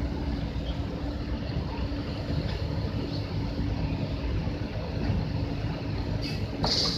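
Heavy vehicle's diesel engine running steadily with a low rumble and a constant hum. A short hiss comes near the end.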